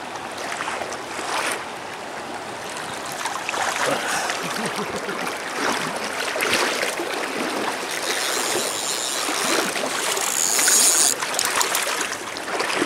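Fast river current running over shallows, with irregular sloshes and splashes from wading close by. A brief high whine comes in between about eight and eleven seconds and is the loudest moment.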